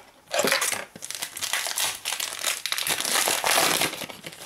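Foil wrapper of a Prizm trading-card pack crinkling as it is handled in the hands, a dense, crackly rustle that starts about a third of a second in.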